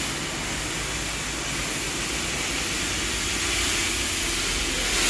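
Steady hiss of compressed air over a low rumble, growing louder near the end, as a car tyre is worked on and inflated.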